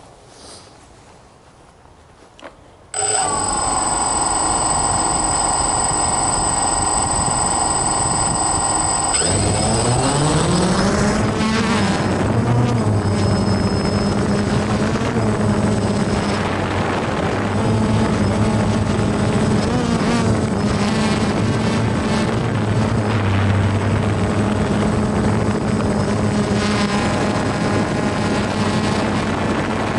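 A small camera drone's electric motors and propellers start up about three seconds in with a steady high whine, then spin up with a rising pitch about nine seconds in as it lifts off. They then run on steadily as it hovers.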